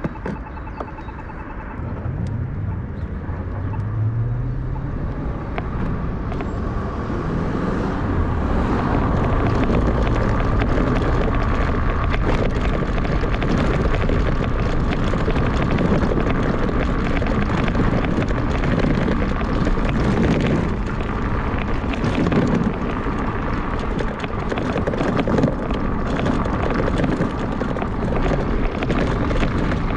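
Riding noise from an e-bike in city traffic: wind rushing over the microphone and road noise, growing louder over the first several seconds as the bike picks up speed, then steady.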